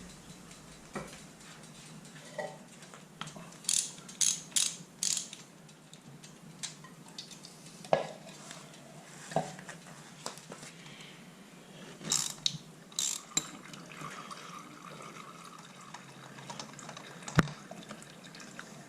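Intermittent mechanical clicks and metallic clatter of tools being worked, with short runs of rapid ratchet-like clicking in two clusters, about four seconds in and again about twelve seconds in.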